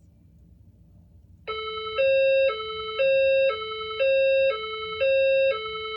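Fire alarm speaker strobe (System Sensor SPSR) sounding its alert signal tone. It starts about one and a half seconds in and alternates a higher and a lower tone, each about half a second long. This is the signal tone that the recorded 'attention please' voice message refers to.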